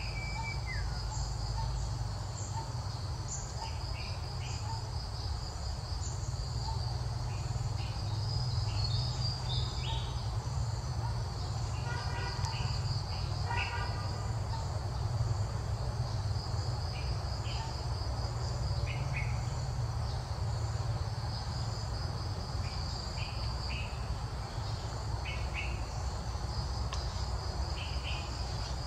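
Steady insect chorus, a high pulsing trill, with short chirps now and then and a low steady rumble underneath.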